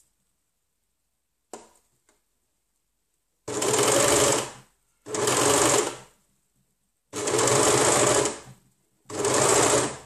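Overlocker (serger) stitching in four short runs of about a second each, stopping and starting again with short pauses between. Before the first run there is only a faint click.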